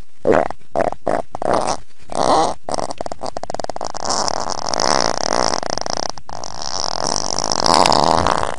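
A run of short farts, then one long drawn-out fart lasting about six seconds.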